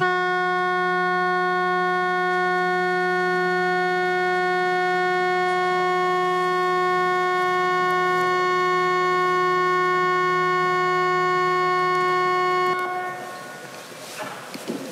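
Parliament chamber's summoning signal for a quorum call: one long, steady electronic tone held for about thirteen seconds, then cut off with a short ringing fade.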